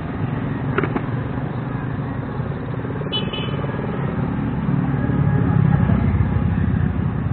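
Street traffic noise with a motor vehicle passing close, the rumble swelling about five seconds in.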